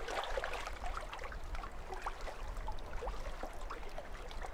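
Lake water lapping and splashing against the side of a canoe, a steady run of small trickling, gurgling splashes, over a low rumble of wind on the microphone.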